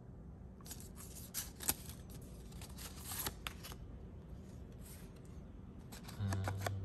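Thin plastic film cards and their paper sleeve being handled: crisp rustles and clicks as a card slides out and is laid down, busiest in the first few seconds. Near the end a man's voice gives a short, level hum.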